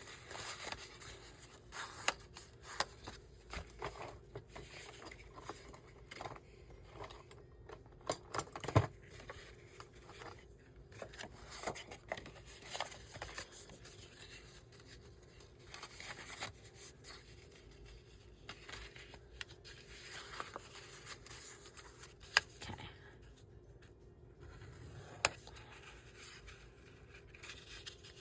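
Paper being folded and creased by hand: irregular rustling and scraping, with a few sharp clicks.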